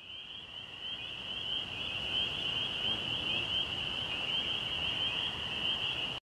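Night ambience: a steady, high-pitched trilling chorus of calling insects over a soft hiss. It fades in and then cuts off suddenly near the end.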